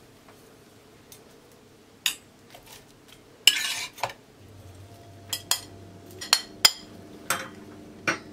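Metal spatula scraping and clinking against ceramic plates as food is lifted off a serving platter onto a plate: a longer scrape about three and a half seconds in, then several sharp clinks.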